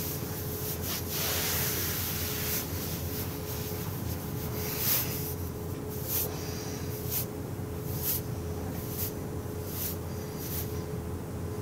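Hands rubbing and pressing over a T-shirt on a person's back in a sports massage: a soft swish of palms on fabric, which turns into separate strokes about once a second in the second half.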